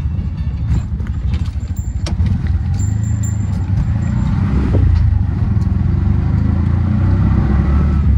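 Auto-rickshaw ride heard from inside the open cabin: a steady low engine and road rumble with wind buffeting, and a few sharp rattles or knocks in the first couple of seconds.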